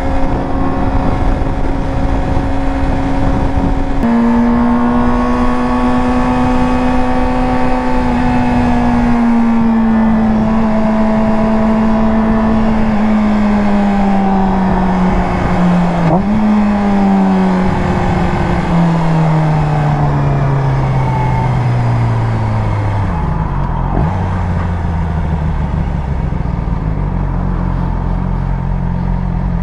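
Yamaha R6 sport bike's inline-four engine running on the road over a steady rush of noise. The revs hold steady, drop about four seconds in as it shifts up, then fall slowly as the bike slows, with a brief rise in revs about halfway through, before settling to lower, steady running near the end.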